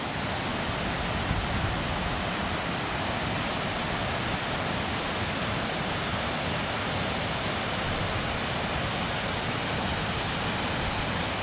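Steady rushing roar of the Palouse River's waterfall and rapids below the canyon rim, an even, unchanging noise.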